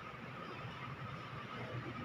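Faint dry-erase marker strokes on a whiteboard, over low room noise.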